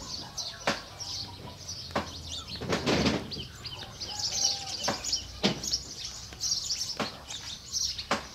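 Domestic chicks peeping repeatedly in short, high chirps, with a few sharp knocks scattered through and a louder, noisier burst about three seconds in.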